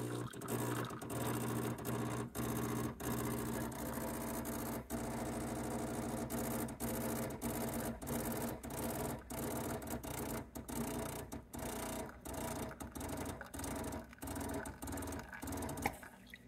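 Gaggia Classic's vibratory pump buzzing as it pushes water through the espresso puck under Gaggiuino pressure control. The buzz keeps breaking off for split seconds, more often later on as the pressure is let down from about 8 to 5 bar. It cuts off near the end as the shot finishes.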